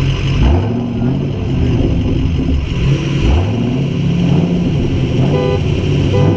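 2010 Mustang GT's V8, fitted with an Airaid cold air intake, idling and revved up in two quick blips, about half a second and about three seconds in, before a launch.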